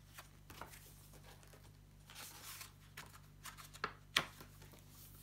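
Soft rustling and small clicks of a paperback picture book and its pages being handled, with a sharp click about four seconds in, over a faint steady low hum.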